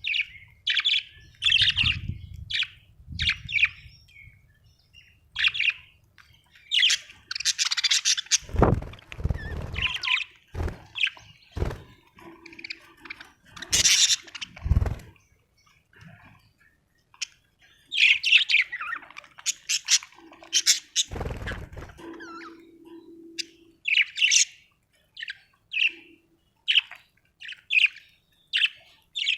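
Budgerigars chirping and chattering in quick runs of short, high calls. A few dull thumps come in between, around a third and two thirds of the way through.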